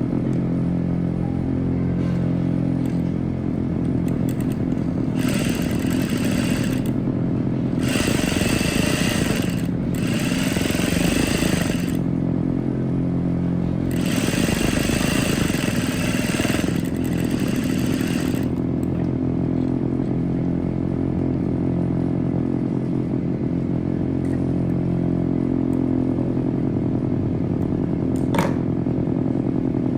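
Electric sewing machine running as it stitches a seam, a steady motor hum with several louder, brighter stretches in the middle and a single click near the end.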